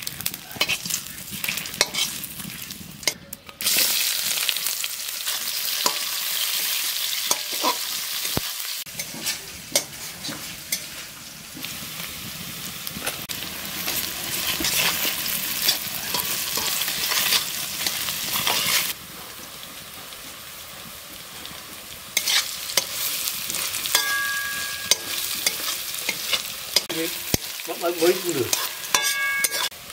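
Sliced onions frying in hot oil in a steel wok, sizzling, while a metal spatula stirs them and clicks and scrapes against the pan. The sizzle starts suddenly a few seconds in and eases briefly past the middle before picking up again.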